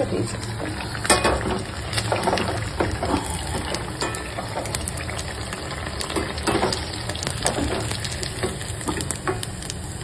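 Sabudana vadas deep-frying in hot oil: a steady sizzle with small crackles and pops throughout. There are a few sharper clicks from the slotted steel spoon against the steel pan.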